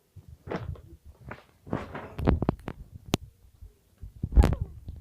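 Handling noises: a series of soft knocks and rustles, then a cluster of sharp clicks, and one loud thump near the end.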